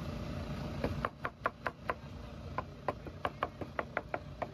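Meat cleaver chopping braised pork carnitas on a plastic cutting board: a quick run of sharp knocks, about four a second, starting about a second in with a brief pause partway through.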